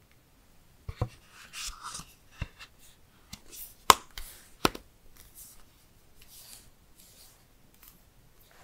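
A mint-green phone case being pressed onto a Google Pixel phone: a few sharp clicks and snaps as the case edges pop over the frame, with rubbing and scraping between them. The loudest snap comes about four seconds in, and only faint rubbing follows.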